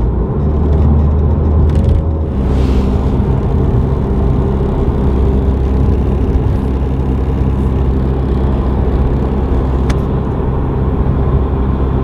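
Cabin noise inside a moving Toyota Supra: a steady engine and road drone, with the cheap plastic driver door panel rattling and squeaking against the metal door frame over road bumps, an occasional click standing out.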